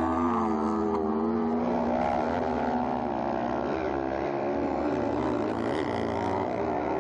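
Several kart-cross buggies racing on a dirt track, their high-revving motorcycle engines buzzing and rising and falling in pitch as the drivers come off and back on the throttle through the corners.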